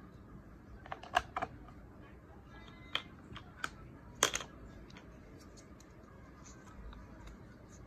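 Hard plastic letter tiles clicking and tapping as they are handled and set down on a plastic alphabet board: a few sharp clicks in the first half, the loudest a little past four seconds in.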